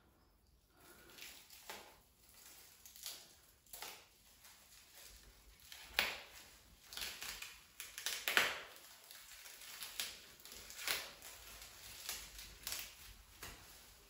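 Plastic cling film crinkling and crackling as it is cut and pulled off a face, with irregular sharp crackles and rustles.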